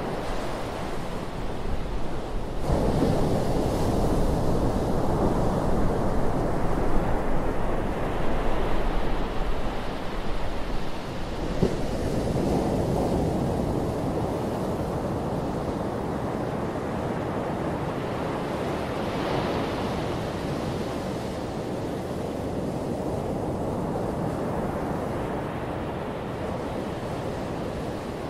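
Small ocean waves breaking and washing up a sandy beach, a continuous surf wash. It swells louder from about three to eleven seconds in, then settles into a softer, steady wash.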